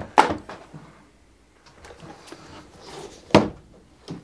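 Hard knocks and clunks of objects being handled and set down: a loud one just after the start, another about three and a half seconds in, and a lighter knock near the end, with quiet rustling between.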